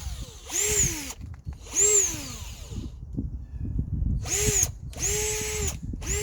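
Bauer cordless drill driving screws in about five short squeezes of the trigger. The motor whine speeds up and then winds down with each burst, over a low rumble of the bit working into the material.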